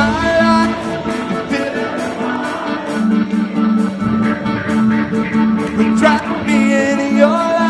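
Live rock worship band playing a song: a male lead vocal sings a phrase near the start and another near the end over guitars, bass and a steady beat. The sound is a soundboard mix blended with crowd sound.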